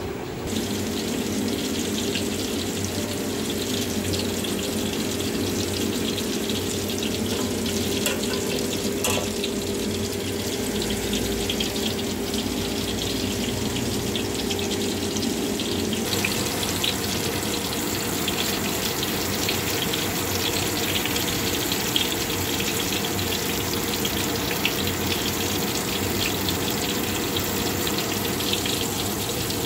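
Hot oil sizzling and crackling steadily in a wok as battered fruit fritters deep-fry.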